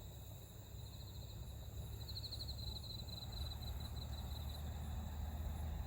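Night insects trilling in rapid pulsed chirps that come and go, over a low rumble that grows stronger about halfway through.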